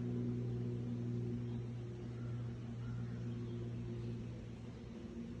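Steady low mechanical hum of a motor or fan running continuously, over a faint hiss.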